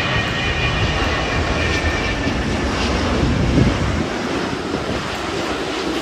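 Delta Airbus A330-900neo airliner passing low overhead on final approach with its Rolls-Royce Trent 7000 engines running: a steady jet roar with a high fan whine that fades over the first couple of seconds. The deep rumble underneath drops away about four seconds in.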